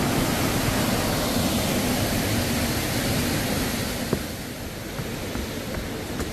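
Steady rush of falling water from a waterfall, dropping noticeably in level about four seconds in, with a single short click just after.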